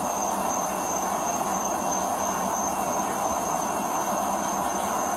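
Steady road noise from passing traffic, a constant even hiss-like rumble, with a thin high steady tone over it.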